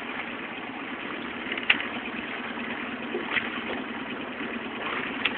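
Outboard motor of a coaching launch running steadily, with a couple of short clicks about two seconds in and again near the end.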